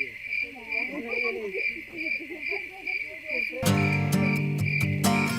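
Crickets chirping steadily, about two chirps a second, with faint indistinct voices beneath. About two-thirds of the way through, acoustic guitar music starts suddenly over the chirping.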